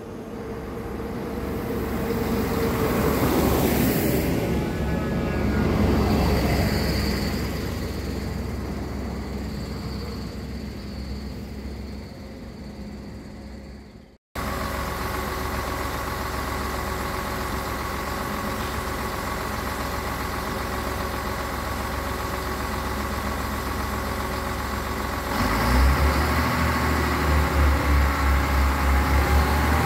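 SNCF X73500-series diesel railcar (X73598) coming up and passing, its sound swelling and then fading away. After a sudden cut, the same railcar runs steadily at a station platform, and about 25 seconds in its diesel engine rises to a louder, pulsing rumble as it pulls away.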